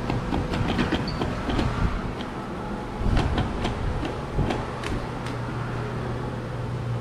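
Claw machine running: a steady low hum with scattered sharp clicks and knocks as the claw is steered and lowered into the prizes, the clicks thickest about three to four seconds in.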